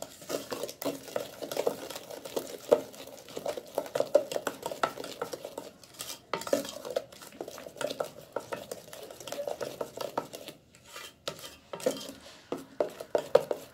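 Wooden spatula stirring a thick paste of ground amla and sugar in a stainless steel pot, scraping and knocking against the metal sides in quick, irregular strokes as the mixture starts to thicken.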